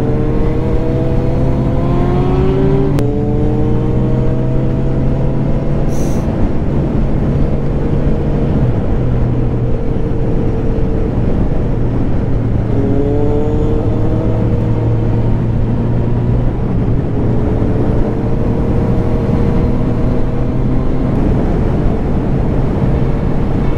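Honda CB1000R's inline-four engine under way, pitch climbing under acceleration and dropping sharply at an upshift about three seconds in. It then holds a steady cruise, with another short climb about halfway through, over heavy wind and road noise.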